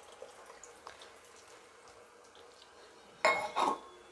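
Faint dripping of the last tamarind water into a pressure cooker, then two loud metallic clanks a fraction of a second apart about three seconds in.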